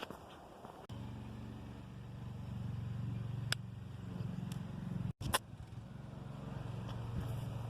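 A motor vehicle's engine running, a steady low hum that comes in suddenly about a second in and briefly cuts out a little past halfway.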